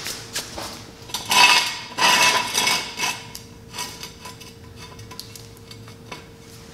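Steel jack stand being handled and set in place on a concrete floor: irregular metal clanks and scrapes, the loudest from about one and a half to three seconds in.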